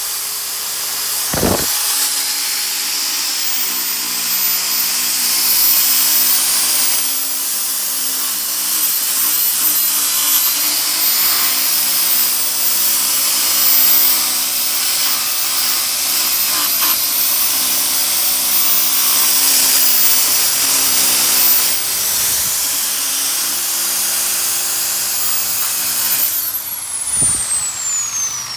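Power sander running steadily against a painted aluminium wheel rim, grinding the paint down toward bare metal; near the end it is switched off and winds down with a falling whine.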